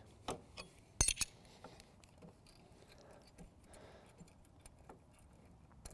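Steel spanners clinking against the mower's front-roller stub shaft and stud as they are set on and worked, with one sharp clink about a second in and a few faint ticks after.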